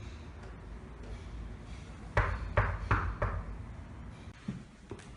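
Four hard knocks on a door, about a third of a second apart, with a couple of fainter thuds near the end.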